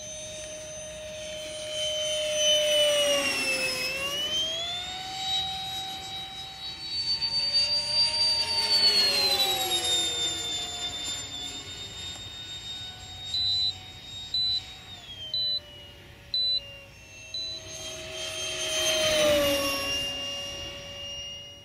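Electric ducted fan of a Sapac BAE Hawk RC jet (MB1 motor, Wemotec rotor) whining in flight. The whine keeps rising and falling in pitch and swells louder, dropping in pitch, as the model passes close, about three seconds in and again near the end. In the middle come five short, high beeps.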